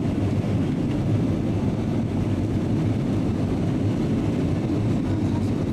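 Steady cabin noise of an Airbus A320-family airliner in flight, heard inside the cabin: an even, low rush of jet engines and air streaming past the fuselage.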